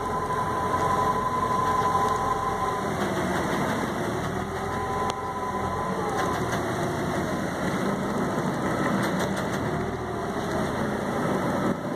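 Boat engine running steadily under way: a continuous low drone with faint higher tones that drift up and down in pitch, over the rush of water along the hull.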